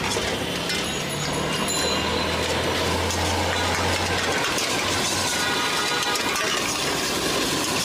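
Steel tongs scraping and clanking against a steel wok as noodles are stir-fried over a gas burner, over steady street traffic noise. A vehicle engine idles low from about two seconds in until just past four.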